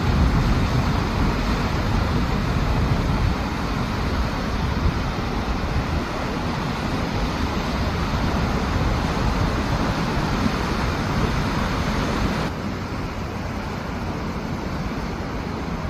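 Sea waves breaking and washing on the shore in a steady rush, with wind rumbling on the microphone. The sound drops a little in level about twelve seconds in.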